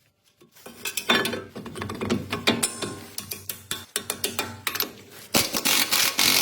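Hand tools and metal car parts clicking and clanking in quick, irregular knocks, then a louder, steadier mechanical noise starting near the end.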